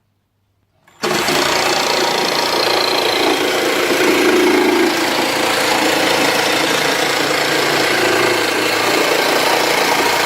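AEG BST 18X 18-volt cordless jigsaw starting up about a second in and sawing steadily through wood, its blade running hard and evenly.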